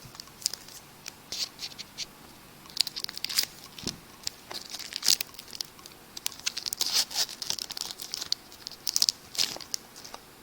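Crinkly wrapper of a baseball card pack being torn open and crumpled by hand: a run of sharp, irregular crackles.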